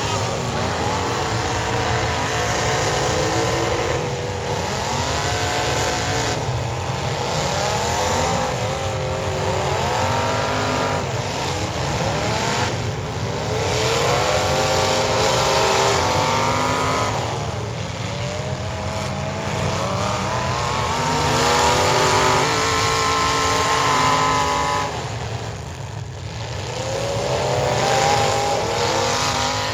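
Several demolition derby cars' engines revving hard and overlapping, their pitch climbing and dropping again every couple of seconds over a steady low rumble.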